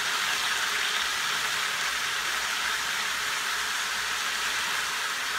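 Chicken pieces frying in hot oil in a wok, a steady sizzle.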